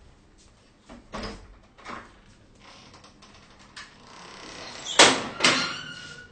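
An apartment door being opened: a few clicks and knocks from the latch and door, then about five seconds in a metal grille security door is pulled open with two loud metallic clangs, leaving a ringing tone that hangs on.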